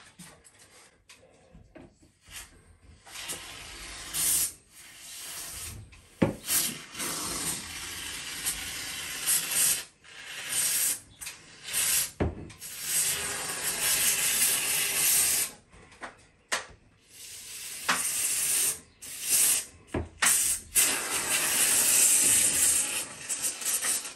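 Aerosol can of expanding foam spraying through its straw nozzle into gaps around ceiling battens: a hiss in stop-start bursts, the longest and loudest towards the end.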